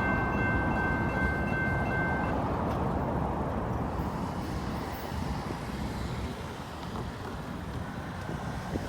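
Union Pacific manifest freight train rolling past with a steady rumble of wheels on rail, easing off slightly over the last few seconds. A high, steady tone carried over from before stops about two seconds in.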